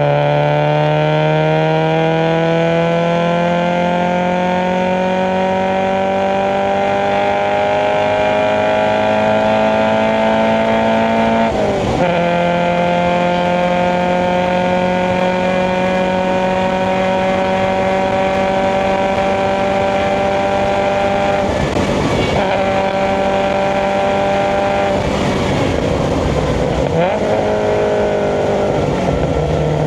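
Subaru BRZ's FA20 flat-four with SARD individual throttle bodies, driven under gentle throttle. The engine note climbs slowly, drops at a gear change about twelve seconds in and climbs again. It breaks at another change a little after twenty seconds, then the revs fall as it comes off the throttle near the end.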